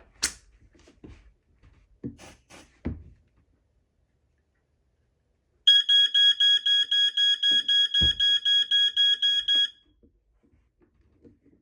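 Jameson Model C ionization smoke alarm's horn going off when set off by canned test smoke: a rapidly pulsing, high-pitched beeping, about five pulses a second, that starts about halfway through, lasts about four seconds and then stops. A single dull knock sounds during the alarm.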